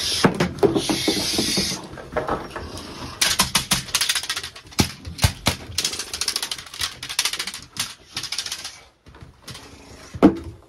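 Boxer puppy scuffling during a tug game on a wooden deck: many quick clicks and scrapes of claws and boots on the boards, with a rustling hiss in the first two seconds.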